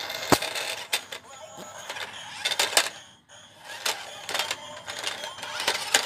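Small electric motors and plastic gearbox of a toy remote-control stunt car whirring, with its plastic wheels clattering and knocking on concrete as it tips up and spins. There is a series of sharp knocks and a brief pause about halfway.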